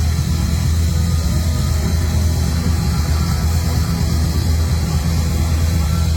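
Loud live band playing heavy rock: a dense, steady wall of sound heavy in the low end, with hiss on top.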